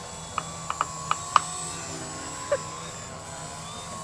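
Steady, faintly wavering whine of a small electric motor on a radio-controlled aircraft in flight, broken by a handful of sharp clicks, five close together in the first second and a half and one more about two and a half seconds in.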